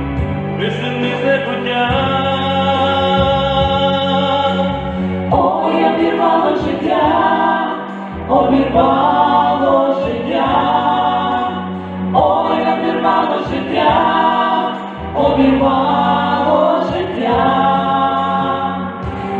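Background music: a choir singing a slow song in phrases of a second or two, over held low accompaniment notes.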